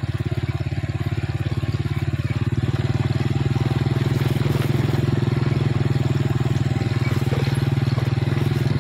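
Small motorcycle engine running steadily at a constant speed while riding, with a fast, even putter.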